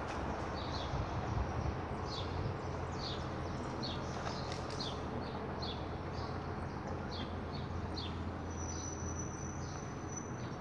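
A bird calling over and over, a short falling chirp repeated a little more than once a second, over a steady low background hum. Near the end the chirps stop and a thin, steady high-pitched tone takes over.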